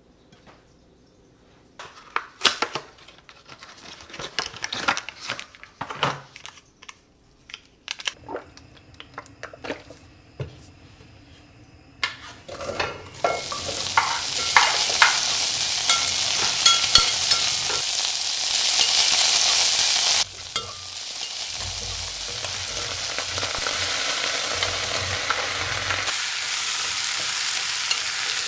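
Diced onion, sweet potato and carrot sizzling and crackling in hot oil in a pot as they are sautéed and stirred. Before the sizzle starts, about halfway through, there are scattered clicks and knocks.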